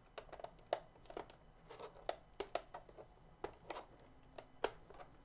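Fingernails clicking and scraping against the plastic underside of a laptop while trying to prise up a small plastic cover piece, a run of irregular small sharp clicks, about three or four a second.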